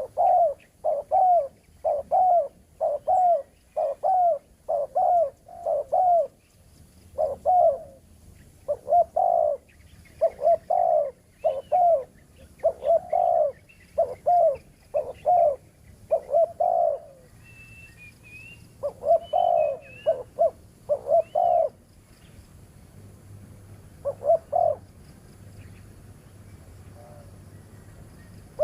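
Spotted doves cooing: a long run of short, loud coo notes at about two a second, broken by a few pauses. A few higher chirps from a small bird come in midway.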